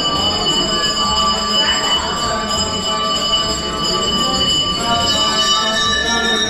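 Background music with sustained high tones held over a low pulsing beat.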